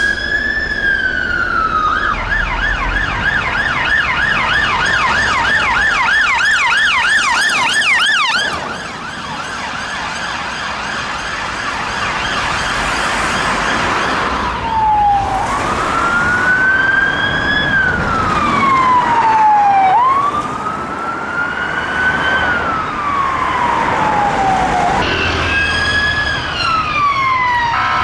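Emergency vehicle sirens: a fire engine's siren wails, then switches to a fast yelp of about three to four sweeps a second. Later a siren wails slowly, rising and falling over several seconds, and near the end another siren wails.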